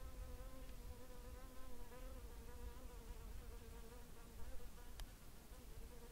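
A flying insect buzzing steadily, its pitch wavering slightly, over a low rumble. A single sharp click about five seconds in.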